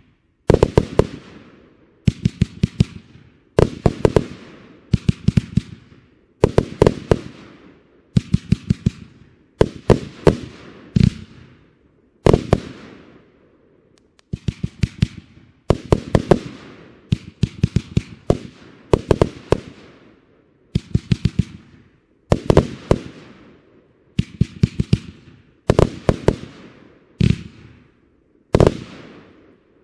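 A 100-shot, 30 mm fireworks cake firing in volleys: tight clusters of several sharp reports every second or so, each cluster trailing off in a fading hiss. The firing stops about a second before the end.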